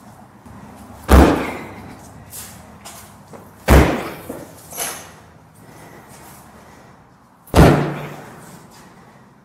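Three heavy booted kicks against a reinforced front door: each is a loud bang with a short ringing tail. They come about a second in, just under four seconds in, and about seven and a half seconds in. The door holds.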